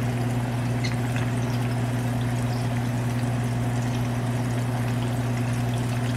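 Chicken thigh frying in hot oil in a pan: a steady sizzle with scattered small pops and crackles, over a steady low hum.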